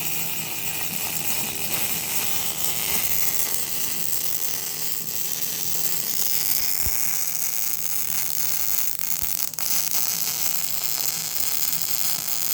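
MIG welding arc sizzling and crackling steadily while gussets are welded onto a Mustang II lower A-arm pivot mount.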